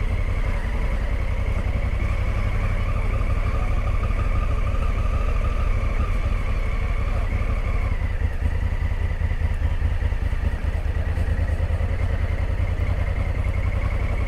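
Motorcycle engine running steadily, its firing a dense even pulse, with a thin whine on top that drops slightly in pitch about eight seconds in.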